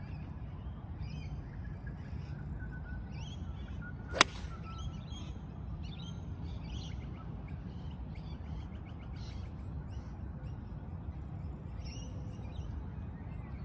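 Golf iron striking a ball: a single sharp click about four seconds in. Birds chirp now and then over a steady low background rumble.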